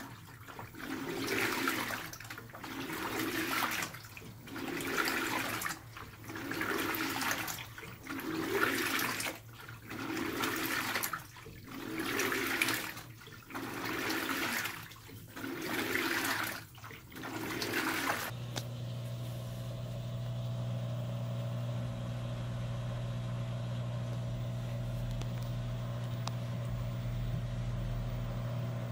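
LG Twin Wash Mini pedestal washer agitating a load of clothes in water: a rhythmic swish and slosh about every two seconds, about ten strokes. About two-thirds of the way through the sloshing stops and a steady motor hum takes over.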